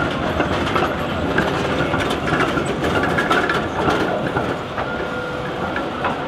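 A2-class tram running past close by: steady rumble of steel wheels on rails, with a run of sharp clacks as it crosses the junction's points and rail joints. A thin steady high tone comes in near the end.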